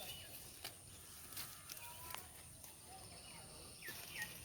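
Faint village outdoor ambience: a steady high insect drone, a few light clicks, and short bird chirps near the end.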